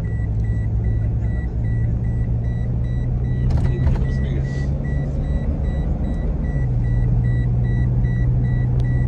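Car engine and road rumble heard from inside a moving taxi's cabin, a steady low hum that steps up slightly in pitch about two-thirds of the way through. A faint high beep repeats about three times a second throughout.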